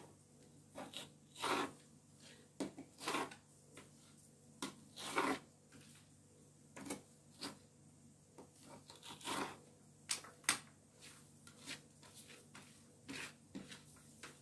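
A kitchen knife chopping an onion on a tray: short, irregular scraping cuts, spaced out at about one or two a second.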